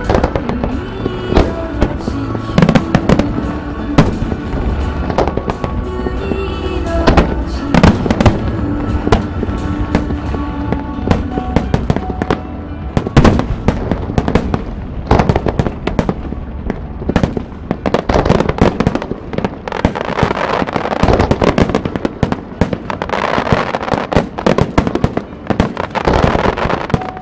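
A fireworks display: aerial shells bursting in quick succession, with music playing along. Toward the end the bursts thicken into dense, rapid crackling.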